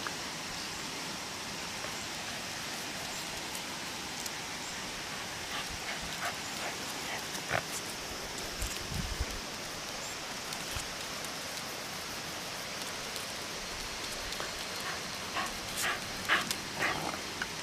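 Shiba Inu dogs jostling close by while being petted: scattered short rustles and scuffs over a steady outdoor hiss, busier near the end.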